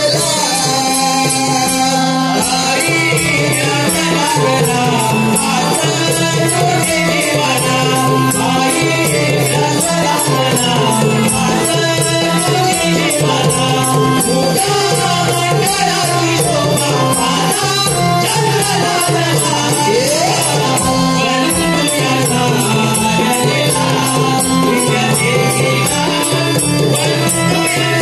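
Live Marathi devotional Naman song: a male singer's melody over held accompanying notes, with rattling percussion keeping a quick, steady beat.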